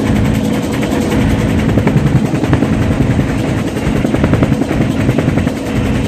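Helicopter engine and rotor heard from inside the cabin in flight: a loud, steady drone with a fast pulsing beat.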